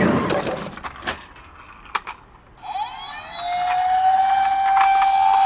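Police car siren wail coming in about halfway through: a brief dip in pitch, then one long, slowly rising tone. Before it, a louder noisy sound fades out and a few sharp clicks are heard.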